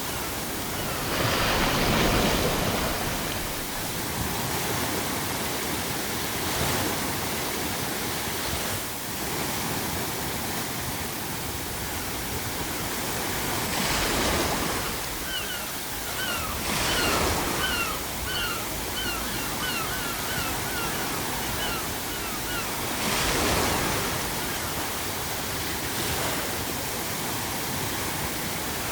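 Ocean surf breaking in swells every few seconds over a steady bed of pink noise. About halfway through, seagulls call a quick run of short cries for several seconds.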